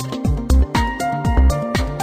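Electronic background music with a steady kick-drum beat, sharp percussion hits and held synth notes.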